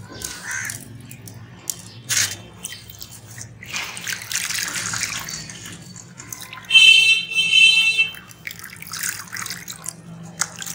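Wet sand-cement lumps being crumbled by hand into a tub of water: irregular splashing, trickling and dripping as pieces and grit fall in. About two-thirds of the way through, a louder high-pitched background sound rings for about a second.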